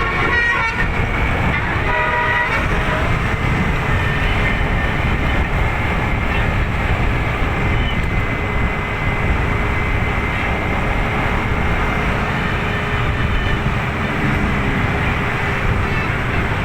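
Bus telolet basuri musical horn playing a melody of notes that ends about a second in, with one more short phrase about two seconds in. Then steady vehicle and road noise.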